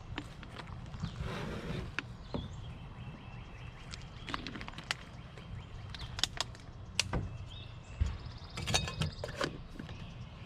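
Scattered sharp clicks and knocks with bits of rustling, over a low steady rumble and faint bird calls; the densest run of clicks comes near the end.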